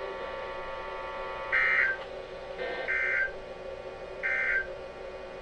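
Emergency Alert System end-of-message signal: three short, shrill digital data bursts about a second apart, over a steady electrical buzz from the receiver.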